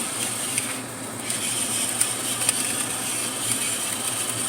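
Electric pepper grinder running while its top button is held down, grinding black pepper, over a pan of frying food sizzling with scattered small pops.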